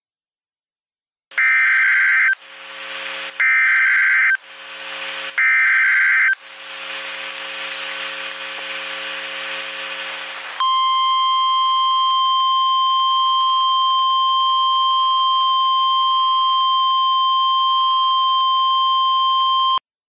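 Emergency Alert System signal: the digital header sounds three times as one-second bursts of screechy data tones, with a fading hiss between and after them. Then a steady single-pitched attention tone holds for about nine seconds and cuts off just before the end.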